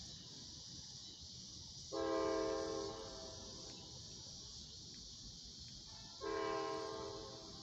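A diesel freight locomotive's multi-chime air horn, heard from a distance, sounds two long blasts about four seconds apart as a train approaches the grade crossings.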